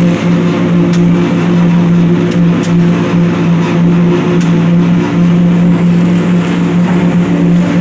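Heavy machinery engine running steadily at constant speed: a loud, even drone with no change in pitch, and a few faint ticks over it.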